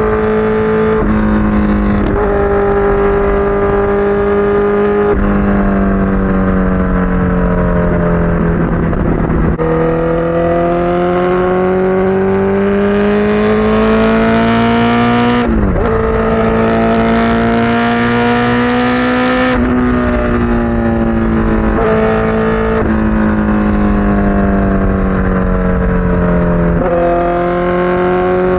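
Honda CBR1000RR Fireblade inline-four engine running at steady mid revs. Its pitch drifts slowly up and down with several abrupt steps, and there is an added rushing noise for a few seconds past the middle.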